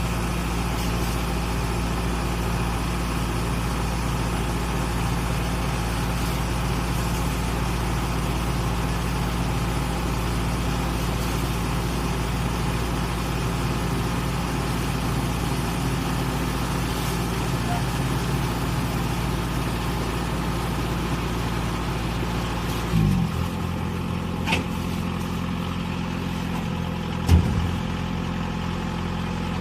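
Daedong combine harvester running steadily with a constant engine hum. About three-quarters of the way through the low hum suddenly drops away with a brief sliding sound, and two short knocks follow near the end.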